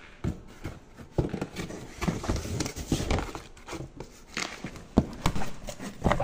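Cardboard boxes being handled and opened: flaps scraping and knocking, with plastic packaging rustling, in irregular bursts.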